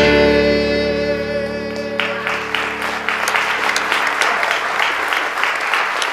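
The band's final chord on piano and electric bass rings out and fades. About two seconds in, applause breaks out and carries on.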